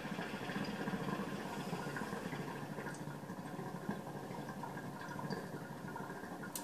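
Kaya PNX 590 hookah bubbling steadily as smoke is drawn through the hose, water gurgling fast in the glass base.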